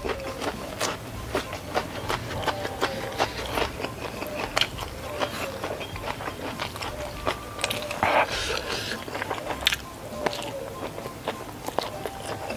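Close-miked chewing and wet mouth clicks of a person eating rice and stir-fried mini sausages, with fingers scraping and pinching rice off a banana leaf. There is a louder burst of noise about eight seconds in.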